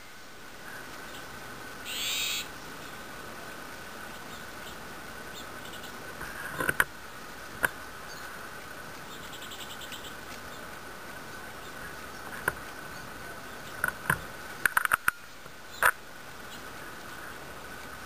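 Nuttall's woodpeckers foraging on eucalyptus bark: scattered sharp taps, bunched around seven seconds in and again near fifteen seconds, with a short bird call about two seconds in and a fainter one near ten seconds, over a steady high whine.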